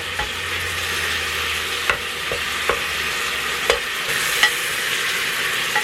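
Lean ground beef frying with a steady sizzle in a Presto electric kettle, with a few sharp clicks scattered through it.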